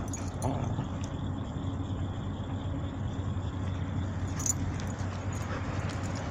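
Two dogs playing tug of war with a rope toy: faint jingling and clicking, as from collar tags, over a steady low background rumble.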